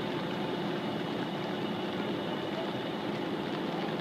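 An engine running steadily at an even level, with a faint steady hum and no change in pitch.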